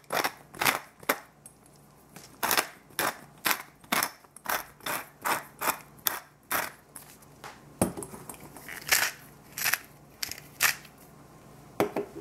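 Hand-turned spice grinder (salt or pepper mill) being cranked, giving a sharp click about twice a second for the first seven seconds, then a few slower, spaced clicks.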